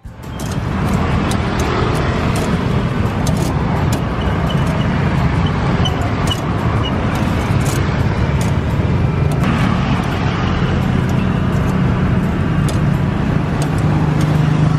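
A motor running steadily: a low hum under an even rumbling noise, with scattered faint ticks.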